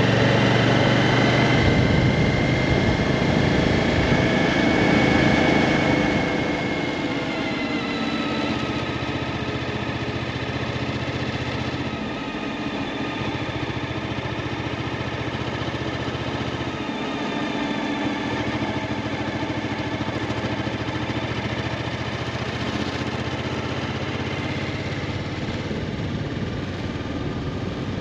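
Suzuki V-Strom motorcycle engine running on the move. It is a little louder for the first six seconds, then settles into a steady note.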